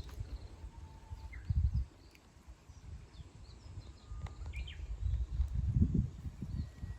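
Wild birds calling with short, scattered chirps and quick whistled notes, over bouts of low rumbling noise that swell loudest about a second and a half in and again near six seconds.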